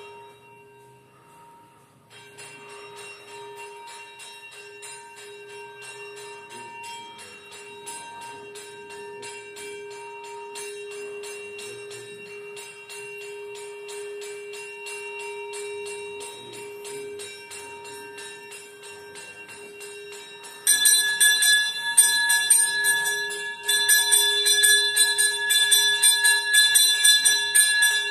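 Temple bells ringing rapidly and without pause during a Hindu puja, over a steady tone. The ringing becomes much louder and brighter about twenty seconds in.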